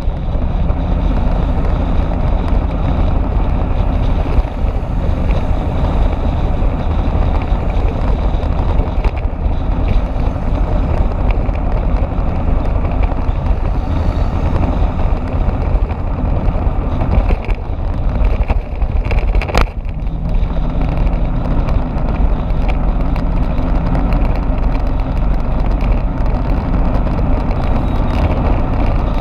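Motorbike riding at speed: wind buffeting the microphone over the engine's steady running. A brief sharp click about two-thirds of the way through.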